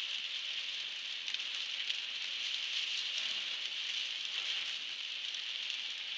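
Heavy rain falling on a car's windscreen and roof, heard from inside the car as a steady hiss with fine scattered ticks.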